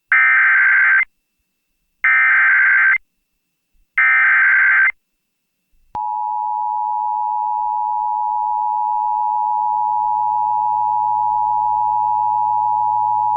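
Emergency Alert System SAME header: three one-second bursts of buzzing digital data tones, about a second apart, followed from about six seconds in by the steady, piercing two-tone EAS attention signal. Together they mark the start of an emergency alert broadcast, here a Severe Thunderstorm Warning.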